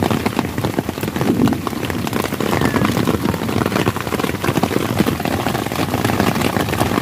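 Heavy rain: a dense, steady patter of drops.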